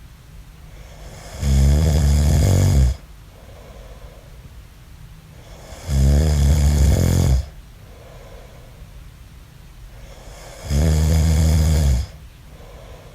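A man snoring: three loud snores, each about a second and a half long and about four and a half seconds apart, with softer breathing between them.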